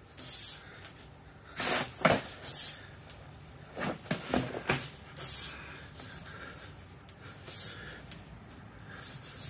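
Black sheet-steel stovepipe being pressed and worked round by hand on a paper-covered floor: a series of short scuffing and rubbing noises with a few sharp metallic clicks, most of them between about 2 and 5 seconds in.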